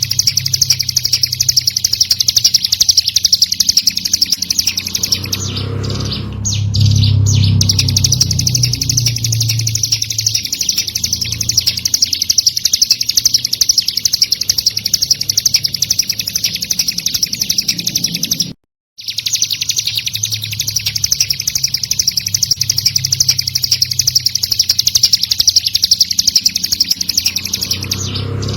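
Recorded ciblek gunung (a mountain prinia) calling in a fast, unbroken rapid-fire series of high chirps. The song stops completely for a moment about two-thirds through, then resumes. A low hum swells under it twice.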